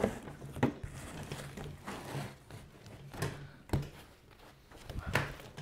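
Sticky slime being stretched and worked by hand on a plastic tabletop: soft handling noises and about half a dozen sharp taps and slaps, with a short quiet spell near the end.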